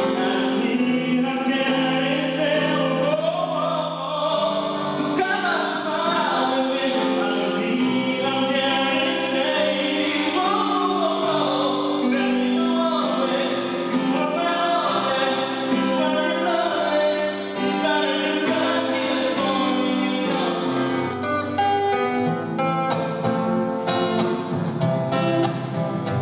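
A man singing a melody over electronic keyboard chords. About 21 seconds in, the music changes to an acoustic guitar being strummed and plucked.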